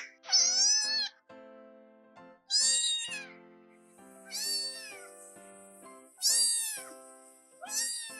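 Domestic cat meowing five times, about every two seconds, each meow rising and then falling in pitch, over background music.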